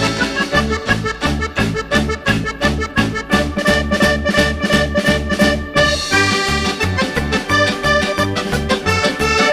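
Background music with a steady, quick beat and a bright melody.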